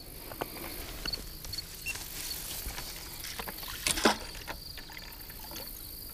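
Water splashing and sloshing as a hooked carp is played close to the bank, with one sharper splash about four seconds in.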